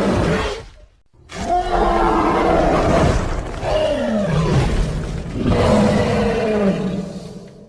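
Designed iguanodon roar sound effect: one roar ends shortly after the start, then after a brief silence comes a long roar of about six seconds made of several calls that slide down in pitch.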